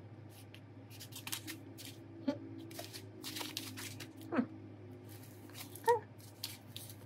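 Scattered light clicks and scraping from a phone and small repair tools being handled, over a steady low hum, with two brief squeaks, one about four seconds in and one about six seconds in.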